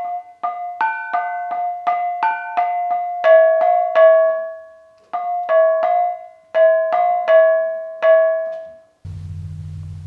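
Gamelan bonang, a row of small bronze kettle gongs, struck with two cord-wrapped beaters in a quick melodic pattern of ringing, decaying notes, about two to three strokes a second. The strokes pause briefly midway and stop about a second before the end, when a low steady hum takes over.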